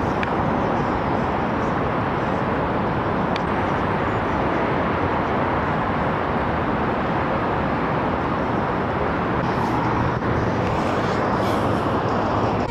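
Wind rushing steadily over a handheld camera's microphone at the top of a high-rise spire.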